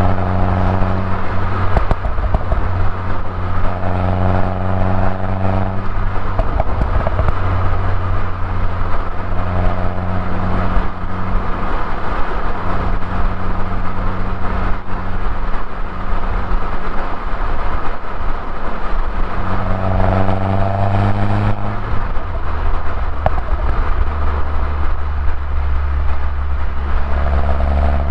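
Mini Cooper S R56 turbocharged 1.6-litre four-cylinder engine and stock exhaust while driving, over steady road noise. The engine note comes up and glides in pitch several times, about five short spells of acceleration between gear changes and cruising.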